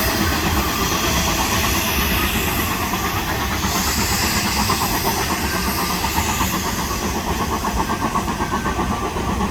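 Steam train running past, with a fast, even beat of exhaust and running gear, slowly getting quieter.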